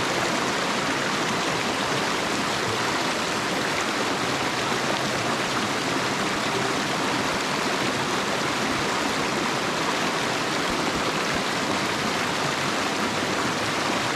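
A good-sized creek rushing steadily at close range, an even, unbroken wash of water noise.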